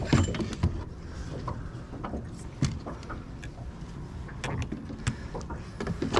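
Scattered, irregular knocks and clicks over a low rumble: handling noise in a small boat while a freshly landed flathead is held and measured.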